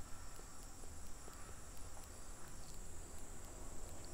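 Quiet background noise: a steady high-pitched drone and a low hum, with a few faint ticks.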